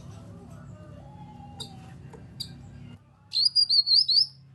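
Cucak kinoi calling: a loud, quick burst of about five sharp, high whistled notes that rise and fall, about three seconds in, after a few faint chirps over a low steady hum.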